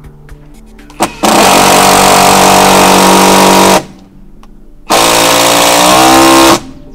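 Ryobi brushless impact driver hammering as it drives a screw into a wooden deck board: a short blip about a second in, then two long runs of about two and a half and one and a half seconds.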